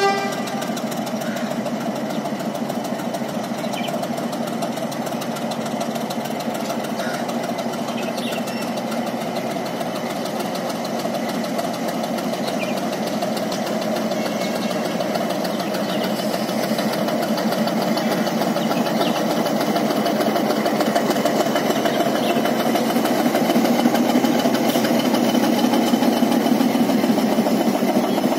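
Metre-gauge YDM diesel locomotive's engine running steadily as it moves slowly past, growing louder over the last several seconds as it draws alongside.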